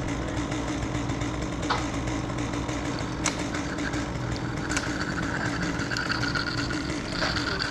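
Two-stroke chainsaw idling steadily, with a few light clicks over it.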